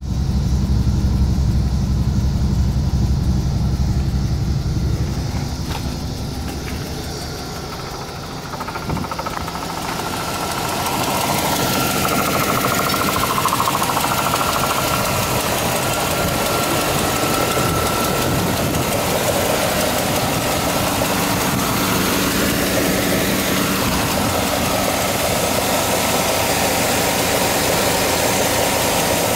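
A 2004 Chevrolet Silverado's 6.0-litre LQ4 V8 idling steadily, at first mostly a low hum heard from inside the cab, then from under the open hood, brighter and with more hiss.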